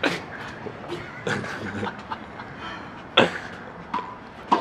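Racquetball rally: a series of sharp smacks of racquet on ball and ball against the concrete wall, about five in all, the loudest a little past three seconds in.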